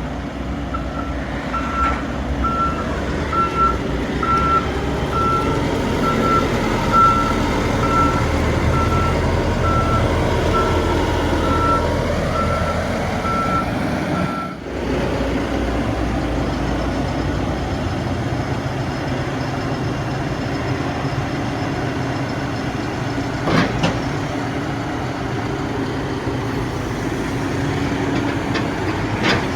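Backhoe loader's Perkins diesel engine running steadily, with its reversing alarm beeping at about one and a half beeps a second while the machine backs up. The beeping stops about halfway through, and the engine runs on, with two short knocks near the end.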